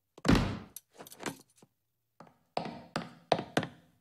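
A stall door shuts with a heavy thunk, followed by a few softer knocks, then four sharp clicking high-heel footsteps on a tiled floor, about three a second, in the second half.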